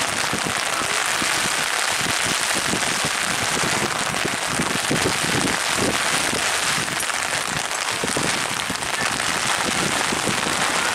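Steady rain falling, a constant even hiss with no let-up.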